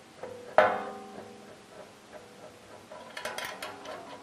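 A sharp metallic clink with a brief ring about half a second in, then a few lighter clicks near the end, as a 10mm bolt is worked through an end cap into a stainless steel feeder reel. Faint background music runs underneath.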